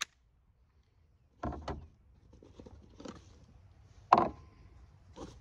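Clicks and knocks of a Glock 44 .22 pistol being handled and worked: a sharp click at the start, a double knock about a second and a half in, and a louder, sharper metallic click with a short ring about four seconds in, then more clatter near the end.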